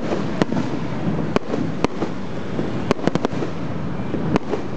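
Fireworks display: sharp cracks of bursting shells at irregular intervals, with a quick run of several about three seconds in, over a continuous noisy background.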